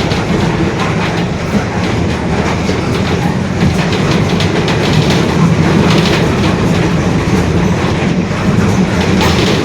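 Interior ride noise of a Mercedes-Benz OF-1721 BlueTec 5 city bus under way: the diesel engine running steadily under load with body and interior rattles, over a low growl from the differential.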